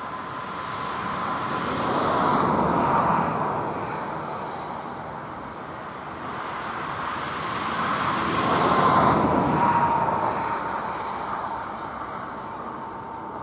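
A level-crossing electronic warning bell sounds steadily. Over it, two passing vehicles swell up and fade away one after the other, the first loudest about three seconds in and the second, louder one about nine seconds in.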